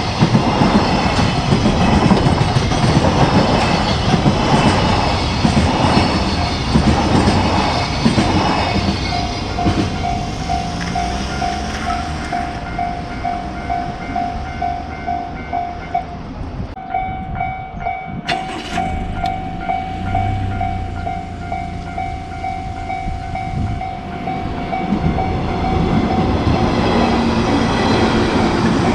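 A train rumbling over a Japanese level crossing while the crossing's warning bell rings on in a steady pulsing 'kan-kan' rhythm. The train noise is loudest at first and fades, leaving the bell clearer.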